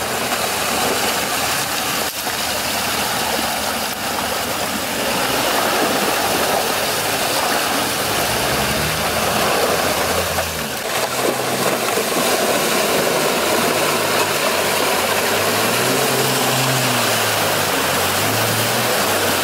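Jeep Wrangler engine working through deep water on a rocky track, the revs rising and falling, with water splashing and churning around the tyres throughout.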